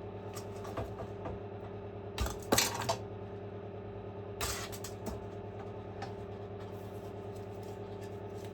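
Small hard clicks and clinks of wire connectors being pulled off an induction hob's control panel and the parts being handled. The loudest cluster comes about two and a half seconds in and another click about four and a half seconds in, over a steady background hum.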